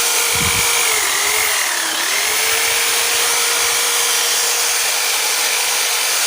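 Electric hand drill with a freshly rewound motor running steadily at speed on a test run. It gives a continuous whine that sags briefly in pitch about one and two seconds in.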